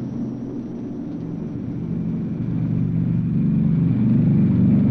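Drone of a B-29's four Wright R-3350 radial engines at full takeoff power, growing steadily louder through the second half.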